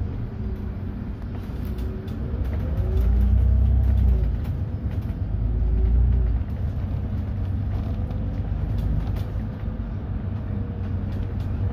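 Solaris Urbino 12 IV city bus driving. It grows louder twice in the first half, its pitch rising and falling as it pulls away, then settles into a steady run with a constant whine.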